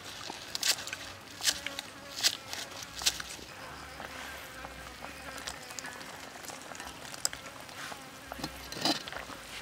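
A kitchen knife chopping green onions on a wooden chopping board: a few crisp chops, a little under a second apart. Then a wok of soup simmering over a wood fire, with a short louder rustle and splash near the end as the chopped onions go in.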